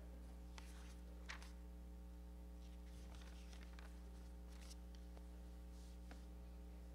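Near silence: room tone with a steady low electrical hum and a few faint scattered clicks.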